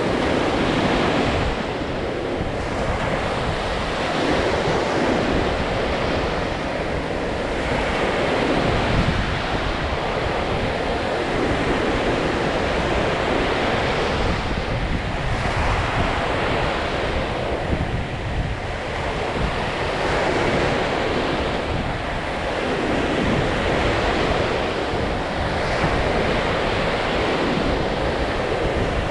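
Lake Michigan waves breaking and washing on the beach, the surf swelling and easing every few seconds, with wind rumbling on the microphone.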